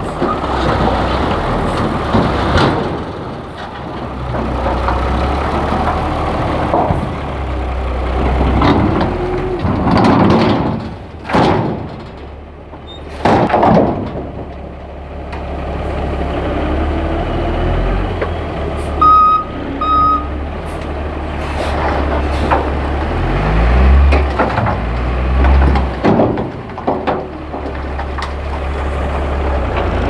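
Ford Cargo dump truck's diesel engine running with the tipper body raised as a load of soil and rocks slides off the bed, with several heavy rushing thuds as clumps drop. Two short beeps sound about two-thirds of the way through.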